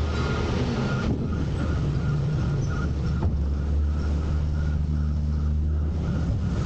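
Autocar/Heil front-loader garbage truck's engine running steadily, with a higher tone over it that turns into an even pulsing about two or three times a second from about a second in.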